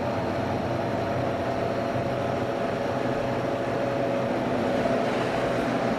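Steady mechanical hum: a low drone with a faint higher whine above it, level and unchanging.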